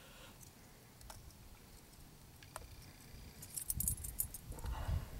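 Light metallic clinking and jingling of a fishing lure's hooks as they are worked free of a large pike's mouth: a couple of faint ticks at first, then rapid clusters of clinks from about three and a half seconds in, with low handling bumps under them.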